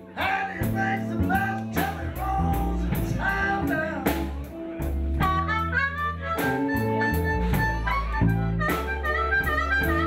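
Live blues band with bass and drums: a man sings in the first half, then plays blues harmonica cupped against the vocal microphone from about halfway through.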